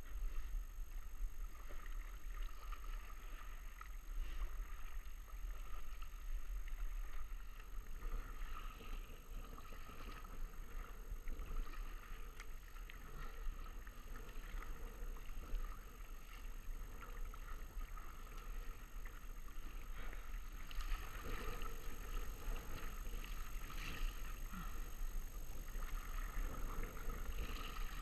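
Water lapping and splashing against the bow of an inflatable packraft as it is paddled across rippled water, over a steady low rumble.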